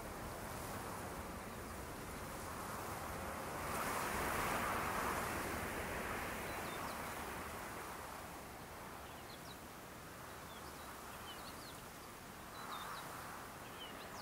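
Wind gusting in the open, swelling about four seconds in and again near the end. From about halfway on come faint, short, high bird chirps.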